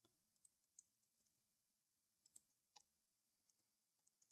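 Near silence with a few faint, irregular clicks of a computer mouse and keyboard being worked.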